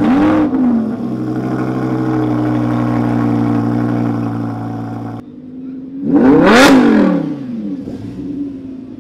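Lamborghini Huracán's V10 engine catches with a quick rev flare and then holds a steady fast idle. After a cut, it gives one sharp rev that rises and falls before it settles back.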